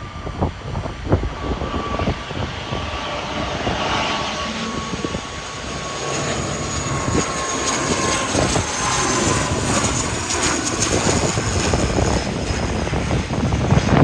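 ATR 72 twin turboprop passing low overhead on landing approach: a steady propeller and engine drone with a thin whine that slowly drops in pitch as it goes by. Wind buffets the microphone throughout.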